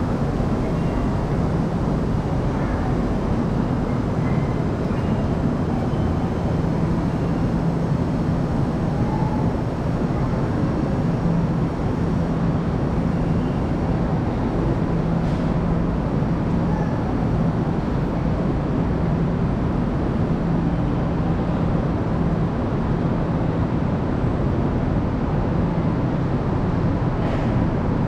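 Railway station ambience: a steady low hum and rumble that keeps an even level throughout, with no sudden events standing out.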